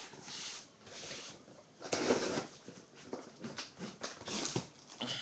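Rustling and scraping of a sealed cardboard case being handled and turned, in irregular bursts, with the loudest scrape about two seconds in.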